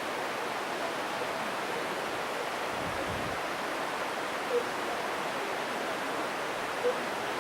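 Steady rushing of Fukiware Falls, a broad waterfall on the Katashina River, as an even wash of falling water. Two brief faint pips sound in the second half.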